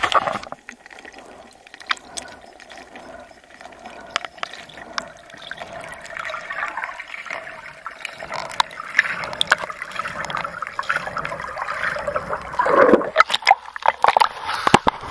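Underwater recording of a freediver's ascent: air bubbles gurgling and hissing past the camera, with scattered clicks, building through the middle. Near the end the water splashes and sloshes as the camera breaks the surface.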